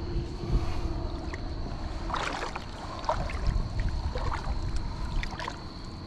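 Shallow water sloshing and splashing around a wader's legs and a light pole and gig spear moving through the water, with a few sharper splashes about two, three and five seconds in.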